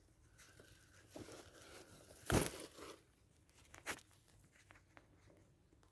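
Rustling and crunching, with one sharp, louder crunch a little over two seconds in and a shorter one near four seconds.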